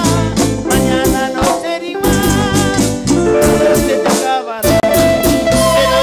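Live band playing through the stage PA, with wavering lead melody lines from the singers over bass and percussion. The bass and drums drop out briefly twice, about two seconds in and again near the end.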